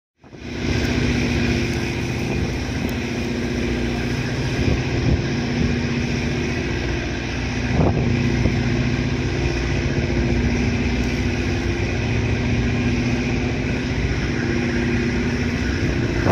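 The engines of the passenger ship Sarubia Maru run steadily as she comes in to berth: a constant low rumble with a steady hum. There is a single short knock about eight seconds in.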